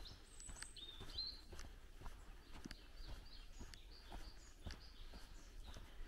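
Footsteps on a dirt woodland path, about two steps a second, with faint birdsong of short chirps and whistles.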